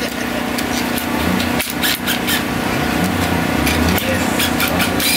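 Cordless power tool driving fasteners on the front of a race engine on an engine stand, a rasping, rubbing mechanical sound with scattered clicks, over a steady low hum.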